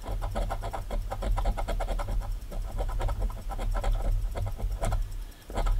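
Coin scraping the rub-off coating of a scratch-off lottery ticket in quick, repeated back-and-forth strokes, with a brief pause near the end.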